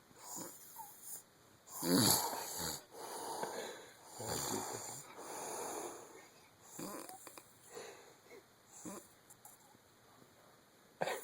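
Snoring during sleep: a loud snore about two seconds in, then a couple of longer, softer breaths, growing fainter toward the end.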